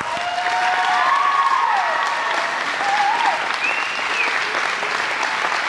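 Congregation applauding steadily, with a few voices calling out over the clapping in the first few seconds.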